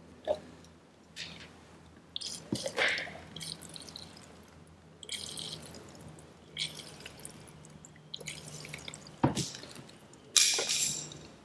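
Petrol spurting and dripping from an outboard fuel line into a plastic cup in irregular squirts, as fresh fuel is pumped through to flush water out of the line. There are a few sharp knocks from the hose and cup, and a louder rushing splash near the end.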